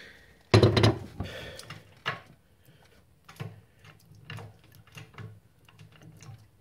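Freshly greased and reassembled floor gear-shifter of a Ford XC Falcon being moved by hand through its gates: a loud clunk about half a second in, then a series of lighter metallic clicks and knocks about once a second as the lever drops into each gear.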